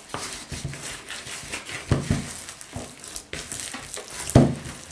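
Hands kneading soft yeast dough with butter worked into it: irregular sticky squelching and slapping, with thumps about two seconds in and a louder one near the end.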